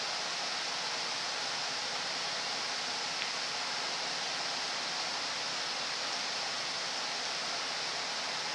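Steady, even hiss of background noise, with one faint click about three seconds in, in the way pool balls knock together.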